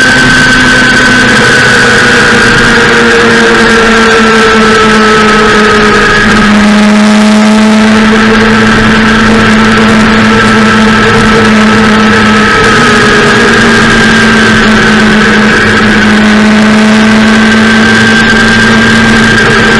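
Motorcycle engine running steadily at cruising speed, its pitch sagging slowly and rising again near the end, over a constant rush of wind and road noise.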